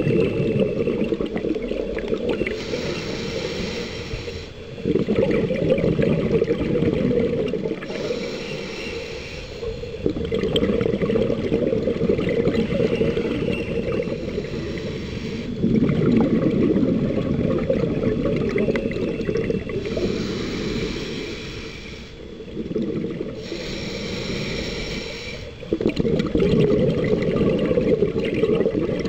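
Scuba diver breathing through a regulator underwater: hissing inhalations through the regulator, each followed by a long rumble of exhaled bubbles, in a slow repeating cycle.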